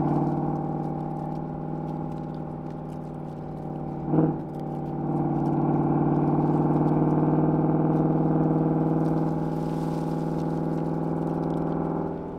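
Ford Mustang GT's V8 running through a Corsa Sport cat-back exhaust while driving, a steady low drone. It fades a little over the first few seconds, with a brief loud bump about four seconds in, then grows louder for several seconds before easing off again.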